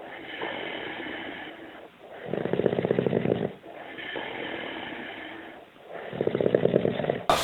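A sleeping man snoring. Loud, rattling snores come about a second in (faint at first), about two seconds in and about six seconds in. Between them are quieter, higher breaths.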